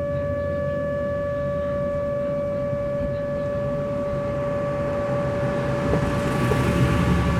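ASC Alertronic AL8000 electronic outdoor warning siren sounding its steady Alert tone: one unwavering electronic pitch with overtones. A broad rushing noise swells over it near the end.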